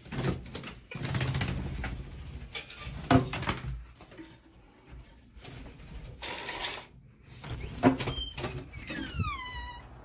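Handling noise and a few sharp knocks as a door and a casement window are worked open. Near the end comes a squeal that slides down in pitch.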